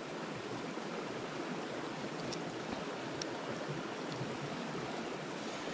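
Steady, even rushing background noise of the bush, with a couple of faint ticks about two and three seconds in.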